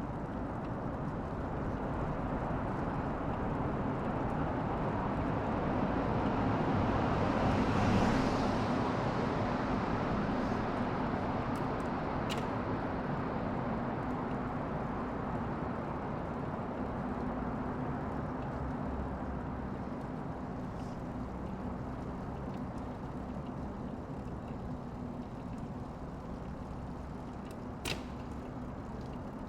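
A road vehicle passing, growing louder to a peak about eight seconds in and then slowly fading, over a steady low engine-like hum. Two short sharp clicks sound later, one near the middle and one near the end.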